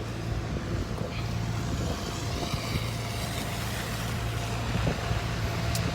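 A motor vehicle's engine running nearby with a steady low hum, over the even rush of street noise.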